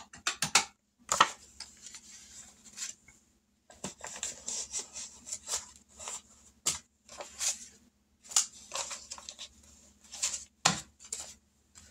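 Paper rustling and crinkling as cash and savings-challenge sheets are handled, in irregular clusters of short crackles and clicks with brief gaps between.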